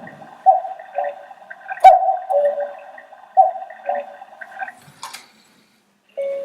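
Engstler quartz cuckoo clock sounding its electronic cuckoo call: a two-note 'cuck-oo', high then low, repeated about every one and a half seconds. A click follows near the end, then a brief pause, and its tune starts just at the end.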